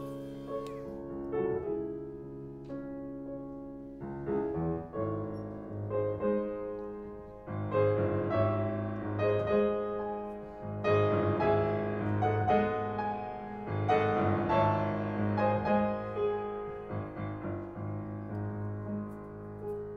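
Solo piano music, classical in style, with sustained chords.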